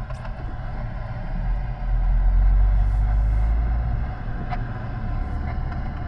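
Road and engine noise inside a moving car's cabin: a steady low rumble that swells for a couple of seconds about two seconds in, then eases.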